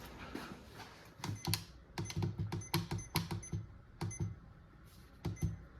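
Footsteps on a hard floor, about two to three steps a second, each with a short sharp click and a light clink.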